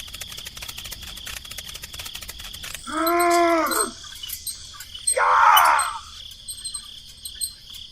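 Insects chirping steadily in a high, continuous buzz with fast ticking. Two short pitched calls of about a second each come about three and five seconds in, louder than the insects.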